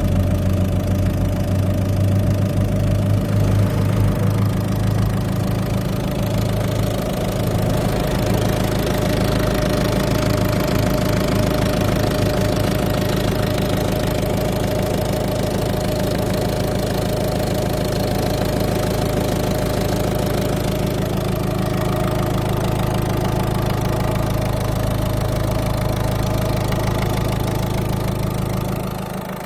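Peugeot-Citroën 1.6 e-HDi 112 diesel engine idling steadily with a knocking noise that the owner is unsure is normal. Its deep hum drops away just before the end.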